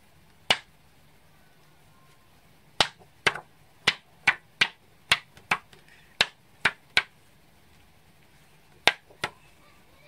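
Cardstock being flicked and tapped to knock excess embossing powder off a stamped card: about a dozen sharp, irregular clicks, most of them bunched in the middle, with two more near the end.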